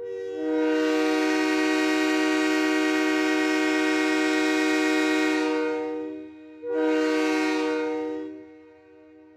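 Train air horn sounding a chord of several notes: one long blast of about six seconds, then a shorter blast of about two seconds that fades away.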